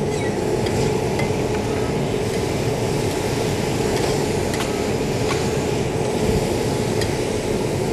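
Ventilation fan of an EVO ventless griddle's downdraft extraction running steadily, drawing steam and cooking vapour down through its filters, with a steady hum under the rush of air. A few light clicks of metal spatulas on the griddle plate sound over it.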